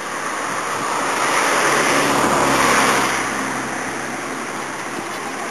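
A motor vehicle passing by: a rush of engine and tyre noise swells, is loudest near the middle, and fades away.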